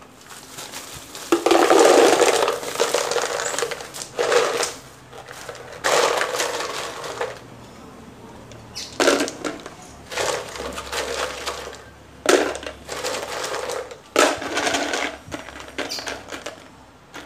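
Expanded clay pebbles poured from a plastic bag and dropped by hand into plastic plant pots, rattling and clattering against the plastic in a series of short bouts, the longest and loudest about two seconds in. This is the drainage layer going into the bottom of the pots.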